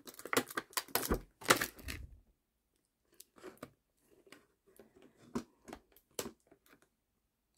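Clear plastic packaging tray crackling and clicking as an action figure is worked loose from it by hand: a dense run of crackles for about two seconds, then scattered fainter clicks.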